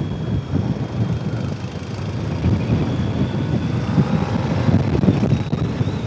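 Motorcycle engine running while riding at road speed, a steady low rumble mixed with wind noise on the microphone.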